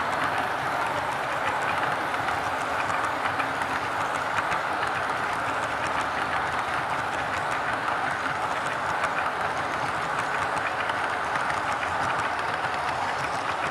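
HO scale model freight cars rolling past on the track: a steady running hiss of the small wheels on the rails, speckled with rapid fine clicking.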